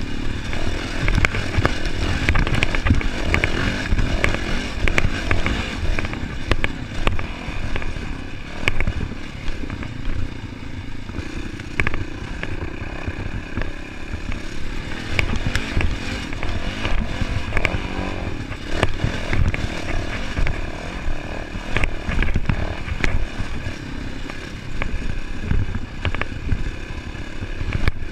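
Yamaha dirt bike's engine running under way on a rough dirt trail, heard from a camera mounted on the bike, with a heavy low rumble and many scattered clattering knocks from the bike over the bumpy ground.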